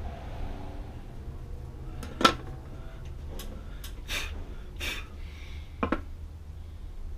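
A plaster of Paris mold being handled on a wooden board: a few light knocks and taps, the sharpest about two seconds in. Two short puffs of breath blown across the mold come near the middle, over a steady low hum.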